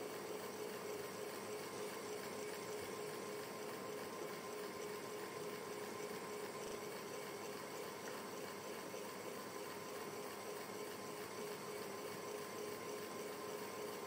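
Electric fan running: a soft, continuous rushing noise with a steady hum, unchanging throughout.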